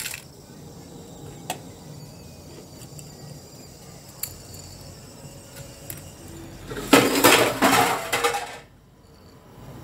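A few faint ticks, then a loud clatter of dishes and utensils lasting about a second and a half, starting about seven seconds in.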